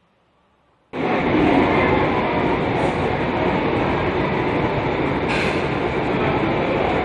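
Loud, steady rumbling noise that starts abruptly about a second in, with a few short hissing flares over it.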